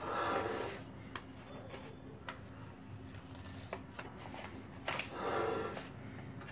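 Plastic piping bag of whipped cream rustling and crinkling in the hands as it is squeezed, with louder rustles near the start and about five seconds in and a few small clicks.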